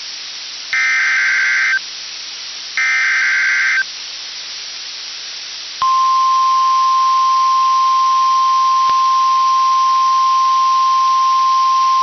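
Emergency Alert System SAME header: two bursts of warbling digital data tones, each about a second long with a short gap between. After about two seconds of steady radio hiss, the long, steady single-pitch weather radio warning alarm tone starts and holds. Together they herald a snow squall warning.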